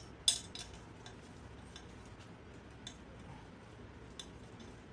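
Metal hand tools clicking against a small gasoline generator engine as it is taken apart: one sharp, loud click near the start, then a few faint ticks spread through the rest.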